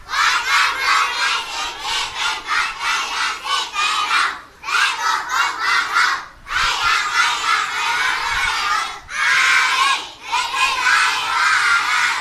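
A large group of schoolchildren reciting loudly together in unison, a mealtime chant spoken in phrases with brief pauses between them, about four phrases in all.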